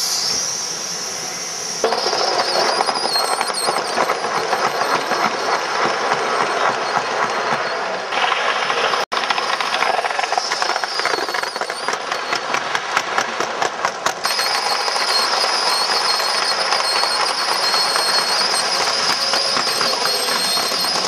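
Gauge 1 live-steam model steam locomotive running on its track, making a fast rattling beat of exhaust and wheel clatter over a steady steam hiss. There is a brief dropout about nine seconds in.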